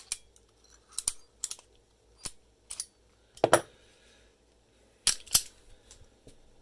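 Sharp metallic clicks and clacks from a US rotary registered mail padlock being worked with a hand-filed brass key, about eight in all. The loudest comes about three and a half seconds in, with two more close together near the five-second mark.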